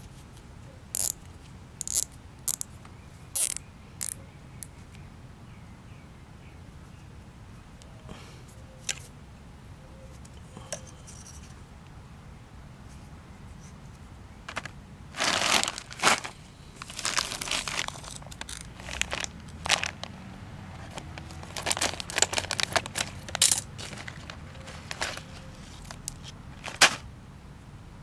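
Nylon zip ties handled over their clear plastic bag: a few separate sharp clicks in the first seconds, then from about halfway bursts of crinkling plastic as ties are pulled from the bag.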